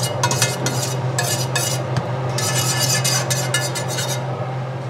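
Metal whisk clicking and scraping rapidly against a stainless steel sauté pan as butter is whisked while it browns, over a steady low hum. The whisking stops about four seconds in as the pan comes off the burner.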